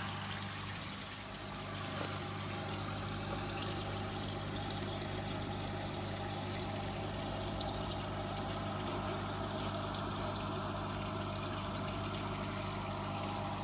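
Water trickling steadily into an aquaponic tank over the low, even hum of a water pump.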